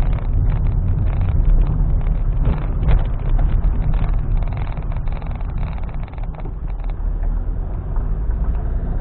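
Car driving slowly along a rough country road, heard from inside the cabin: a steady low engine and road rumble with frequent small rattles and knocks.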